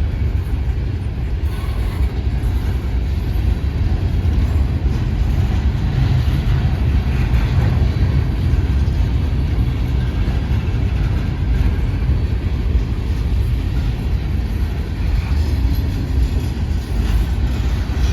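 Freight train rolling past, a steady low rumble of wheels on rail.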